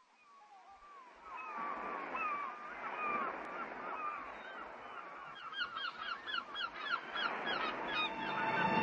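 Gulls calling over breaking surf, fading in at the start. Near the end one bird gives a quick run of repeated calls, about four a second.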